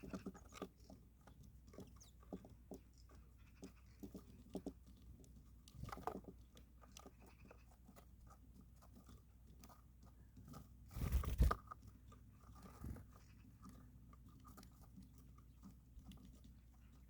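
Birds feeding: faint, irregular crunching and pecking clicks as seed or food is bitten and cracked, with one louder rustling burst about eleven seconds in.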